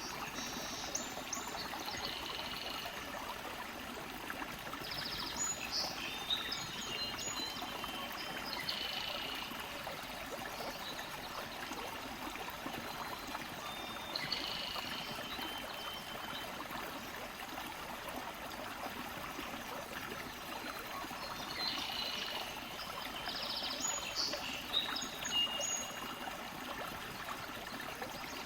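A small stream trickling and gurgling steadily, with birds singing in short chirping phrases now and then.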